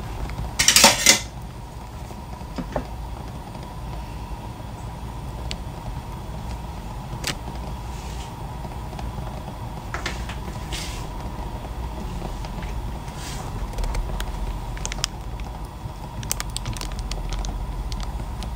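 Steady low rumble of a gas stove burner running under a wok, with scattered light clinks and knocks of kitchen utensils and one loud clatter about a second in.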